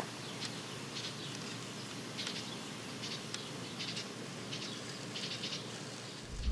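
Faint, short bird chirps at irregular intervals over a steady outdoor hiss.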